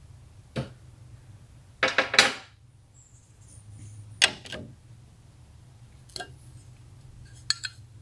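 Metal clinks and knocks of a sliding patio door's handle and plate being fitted back against the aluminium door frame: a few sharp separate taps, the loudest cluster about two seconds in.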